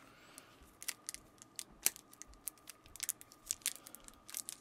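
Light, irregular clicks and crinkles of packaging being handled and opened, several a second.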